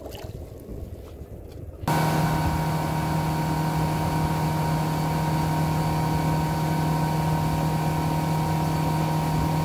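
Boat's engine running steadily while the boat is under way, with the rush of its wake. It starts abruptly about two seconds in, after a quieter moment.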